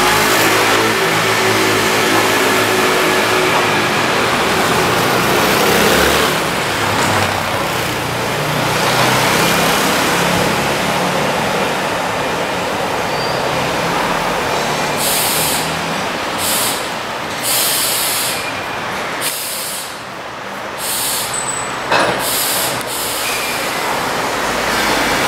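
Trieste–Opicina tram rolling slowly along its rails and drawing up behind a waiting funicular push car. In the second half come several short air-brake hisses, and near the end there is a single sharp knock.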